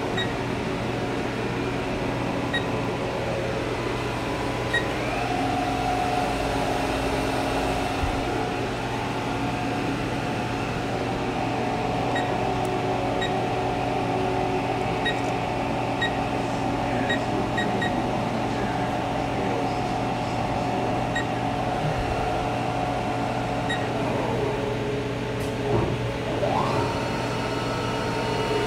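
Haas VF-4 vertical machining center powered up, running with a steady hum and whine, with short beeps from its control keypad as keys are pressed. A higher tone comes in about five seconds in, and a tone rises briefly near the end.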